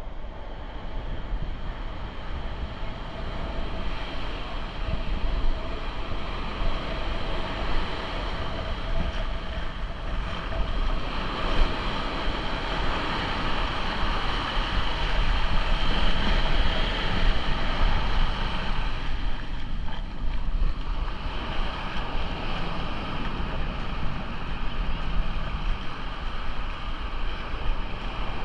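Wind buffeting a GoPro's microphone in a steady low rumble, over the continuous wash of ocean surf breaking on the beach.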